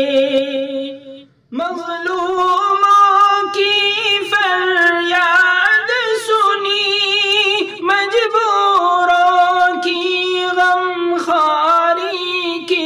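A man singing a naat unaccompanied, drawing out long wavering melismatic notes in a high voice; he breaks off briefly about a second in, then sings on.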